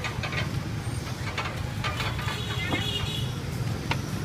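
Street traffic: motorbike engines running with a steady low rumble, and a few short clicks and knocks.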